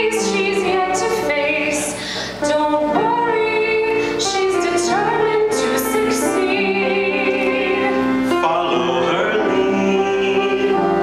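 A woman singing a rewritten show tune to keyboard accompaniment, holding long notes with vibrato.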